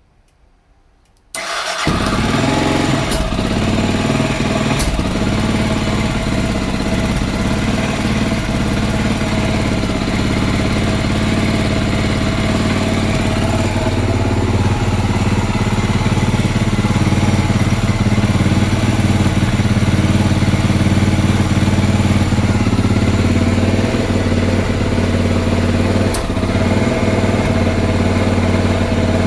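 Honda XR650L's single-cylinder four-stroke engine idling roughly with a spitting stutter, coming in suddenly about a second in. A few sharp pops stand out over the uneven idle.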